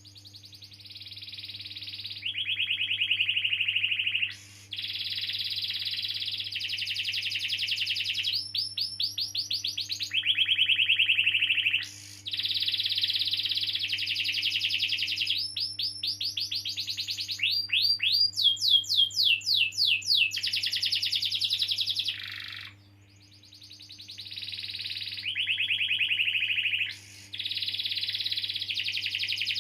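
Domestic canary singing a long song of rolling trills, phrase after phrase of very fast repeated notes changing pitch from phrase to phrase, with a short pause about three-quarters of the way through. A faint steady low hum runs underneath.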